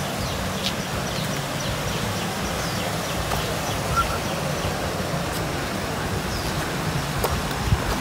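Outdoor ambience on a woodland trail: a steady low rumble of wind on the microphone, with a few footstep scuffs on dirt and rock near the end and faint bird chirps.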